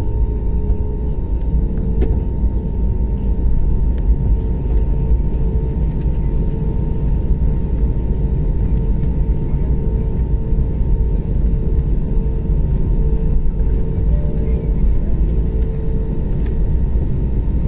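Jet airliner cabin noise while taxiing: a steady, loud low rumble from the engines and airframe, with a constant hum on top.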